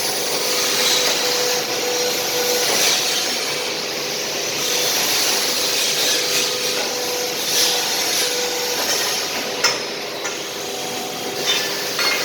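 CNC tube bending machine running, a steady rasping mechanical noise over a held hum, with a sharp knock about ten seconds in and another near the end.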